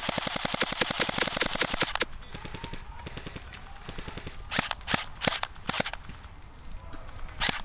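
Airsoft guns firing in a skirmish: a rapid full-auto burst of clicking shots for about two seconds, then a handful of single shots around the middle and more shots starting near the end.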